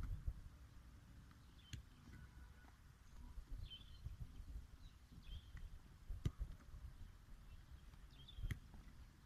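Faint outdoor ambience with birds chirping in short repeated calls, and about three sharp thuds of a football being struck as it is passed back and forth.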